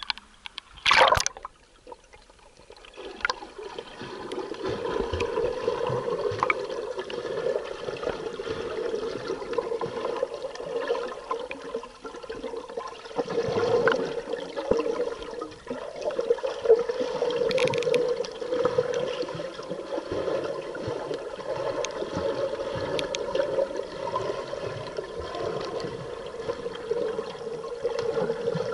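Water heard by a submerged camera: a loud splash about a second in as it goes under, then a steady muffled underwater rush and gurgle that swells and fades, with scattered faint clicks.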